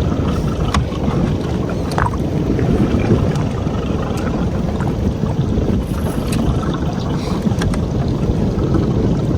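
Steady wind and water noise aboard a small fishing boat at sea, with a few light clicks and knocks scattered through it.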